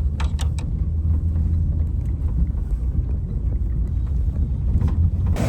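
A steady low rumble, with a few light clicks about a quarter of a second in and again near the end.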